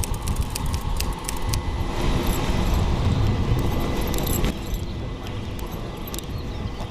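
Sharp metallic clicks and jingles of gear being handled, over a steady low engine rumble.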